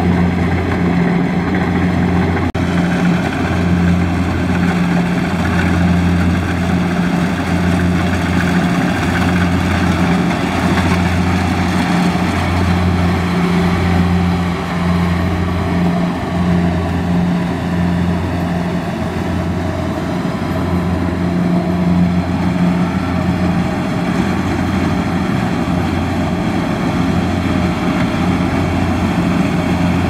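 Kubota DC70 Plus rice combine harvester's diesel engine and threshing machinery running steadily while cutting rice, a constant drone with a low hum that throbs about once a second.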